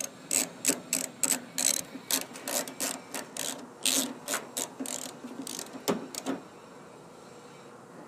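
Socket ratchet wrench clicking in a steady run of strokes, about three clicks a second, as it drives a door-handle mounting bolt; the clicking stops about six seconds in.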